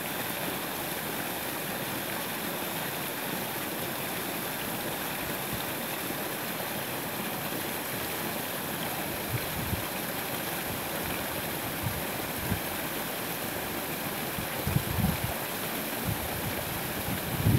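A small woodland waterfall: a brook cascading over a tangle of branches and a fallen log, with a steady rushing splash. A few brief low bumps come late on, the largest about fifteen seconds in.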